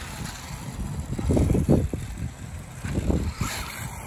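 Traxxas Rustler electric RC truck driving across asphalt, its motor and tyres heard in uneven surges.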